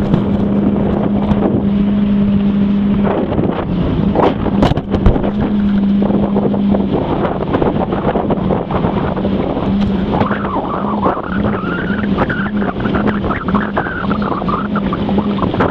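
Fishing boat's engine running with a steady low hum over a wash of rushing noise; the hum turns choppy about halfway through.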